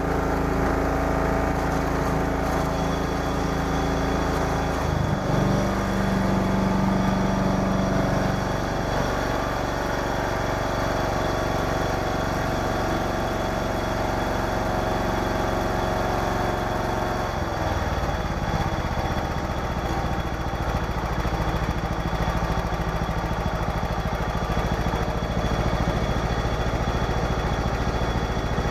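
John Deere 170 lawn tractor engine running steadily, its speed changing about five seconds in and again around seventeen seconds in.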